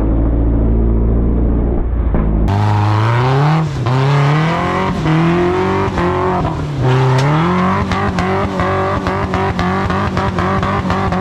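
Rock buggy engine revving hard under load, its pitch climbing and dropping several times, with sharp knocks scattered through it. The first couple of seconds are muffled. The buggy is making no headway because its driver's rear axle shaft has broken.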